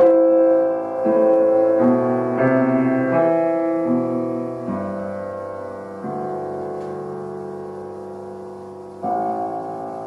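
Background piano music: a slow run of chords changing about once a second, then a long chord slowly fading, with a new chord struck about nine seconds in.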